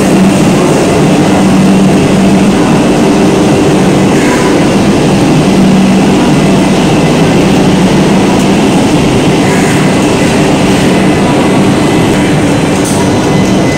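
Vande Bharat Express trainsets standing at a platform, giving off a loud, steady low machine hum.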